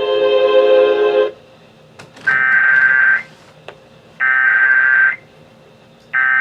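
Music stops about a second in, then the Emergency Alert System's SAME digital header plays: harsh electronic data-burst tones, each about a second long with a second's pause between, two full bursts and the third starting near the end. This header is the coded signal that opens an EAS weather warning.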